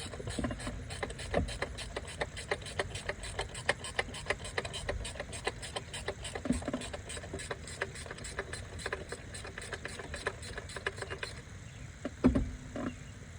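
Hand ratchet clicking rapidly and evenly as a bolt is turned on a BMW N55 engine, stopping about eleven seconds in, followed by two knocks near the end.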